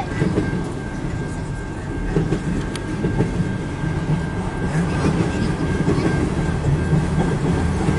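Canadian National freight train of autorack car-hauler cars rolling past, a steady rumble with wheels clattering on the rails.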